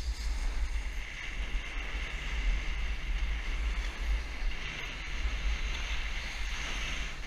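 Wind buffeting the microphone with a low rumble, over the hiss of a snowboard sliding and carving on firm snow, which swells twice.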